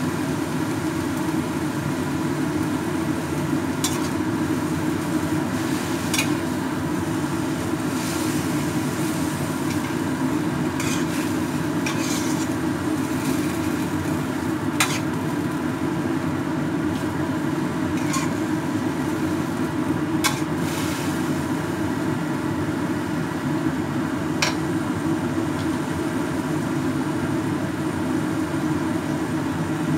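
Noodles frying in a wok with a light sizzle over a steady low hum. A cooking utensil scrapes and taps against the wok about ten times, in short sharp clicks.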